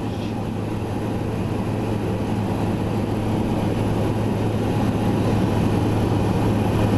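Engine and rushing air inside the cockpit of an FK 12 Comet biplane in flight: a steady low drone under a broad roar of wind, growing gradually louder.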